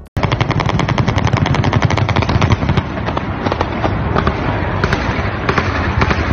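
Helicopter rotor beating overhead: a loud, rapid, even chopping that eases a little about three seconds in.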